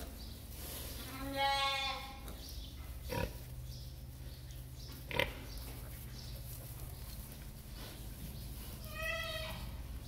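Newborn piglets squealing, one short high squeal about a second in and another near the end. Two short knocks come between them, over a steady low hum.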